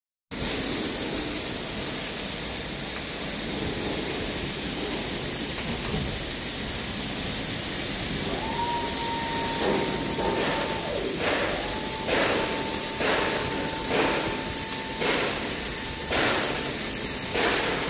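Steady hiss of running machinery. About eight seconds in a steady whine joins it, and from about ten seconds short hissing bursts repeat roughly once a second.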